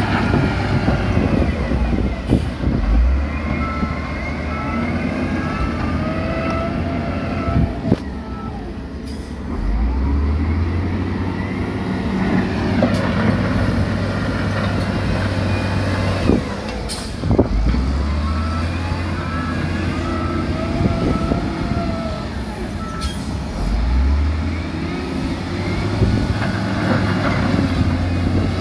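Diesel engines of dump trucks and a wheel loader running and revving up several times, with a few sharp knocks. A steady repeating beep from a reversing alarm sounds in two spells of about five seconds.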